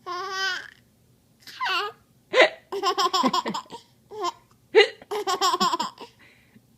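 A small child with the hiccups giggling in several bursts, with sharp hiccups breaking in among the rapid runs of laughter.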